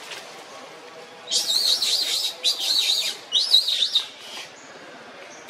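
Three loud, high, wavering animal calls in quick succession, starting about a second and a half in and ending about four seconds in.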